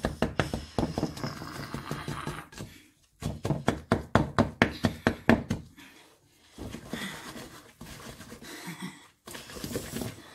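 Wooden spoon beating a thick butter, peanut butter and sugar mixture in a mixing bowl, knocking against the bowl in fast runs of about five strokes a second, broken by short pauses.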